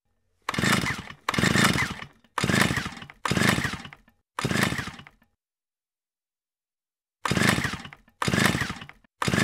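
Chainsaw buzzing in eight short bursts, each starting sharply and dying away within a second, with dead silence between them and a pause of about two seconds after the fifth.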